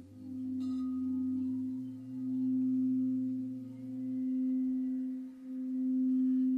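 Crystal singing bowl played with a mallet, holding one sustained tone that swells and fades about every two seconds.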